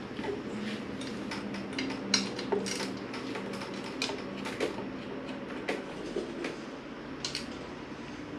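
Irregular metallic clicks and clinks of hand tools and parts during motorcycle fairing disassembly, over a steady low hum.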